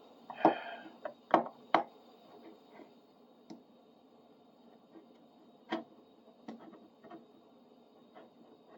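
Scattered light clicks and taps from masking tape being peeled and pulled off a bar clamp's handle. Three loud ones come in the first two seconds, then fainter ones every second or so.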